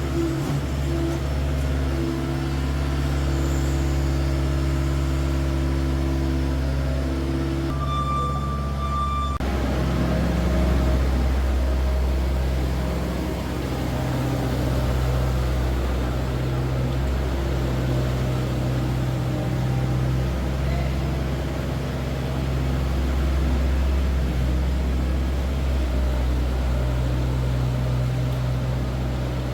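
Bobcat S450 skid-steer loader's diesel engine running steadily under work. Its pitch and character shift abruptly about a third of the way through.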